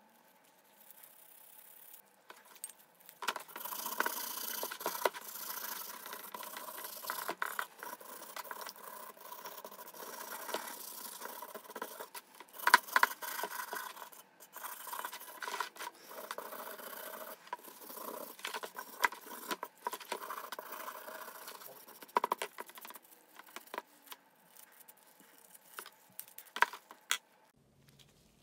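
Wire brush scrubbing a cast iron pipe wrench's parts and handle in a tub of degreaser, in irregular back-and-forth strokes with scraping and clicks. There is a sharp knock about halfway through.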